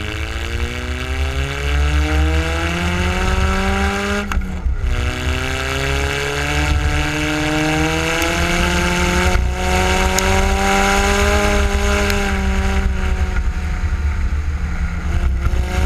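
Car engine accelerating, rising steadily in pitch, with a gear change about four seconds in, then climbing more slowly and holding fairly steady before rising again near the end. Heavy low wind and road rumble on the microphone.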